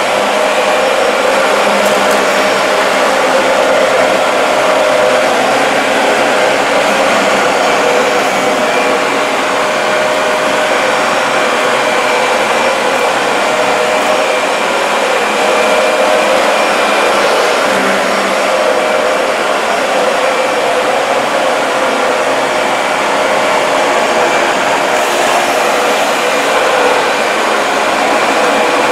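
Dyson DC40 MKII upright ball vacuum cleaner running steadily while vacuuming a rug. Its motor gives a continuous hum with a few steady tones over rushing air.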